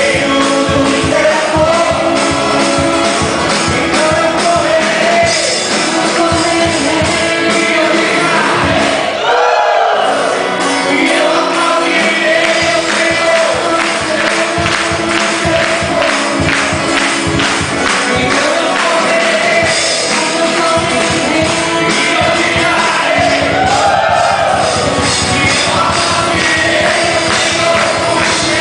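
Live gospel worship music: a band playing a steady beat with singers carrying the melody. The bass and drums drop out briefly about nine seconds in, then come back.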